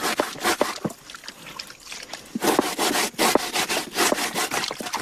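Manioc roots being grated to a wet pulp on a grating board: rapid, repeated rasping strokes, pausing for about a second and a half near the start.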